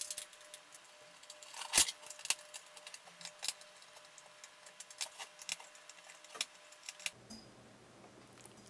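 Scattered small clicks and taps of hands handling wires and a plastic screw terminal block inside an LED lamp's metal housing, with one louder knock about two seconds in; the clicks stop about seven seconds in.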